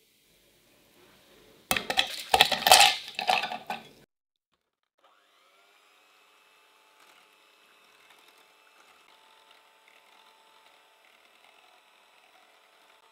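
Ice cubes clattering loudly in a glass bowl for about two seconds. About five seconds in, a Philips electric hand mixer starts and runs steadily at low level with a faint whine, its beaters whipping cream in a bowl set over the ice.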